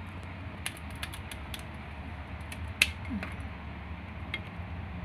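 Kitchen scissors snipping and cracking through a steamed lobster's shell: a string of sharp, irregular clicks and snaps, the loudest a little past the middle. A steady low hum runs underneath.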